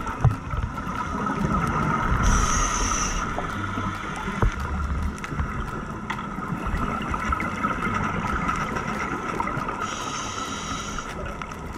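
Underwater sound of a scuba diver breathing through a regulator: two hissing inhales, about two seconds in and again near ten seconds, with bubbling and rumbling between, over a steady high hum.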